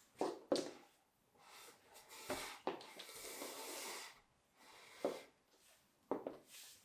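High-heeled shoes clicking on a wooden floor in a few sharp steps, with a wooden chair slid across the floor in a hissing scrape of about two seconds in the middle.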